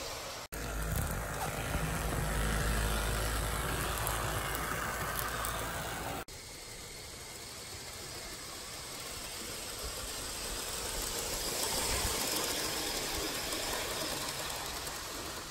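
Gauge One model trains running on outdoor track: a steady rumble and rattle of wheels on rail. It breaks off abruptly twice, and the second stretch is quieter and swells as the coaches come close.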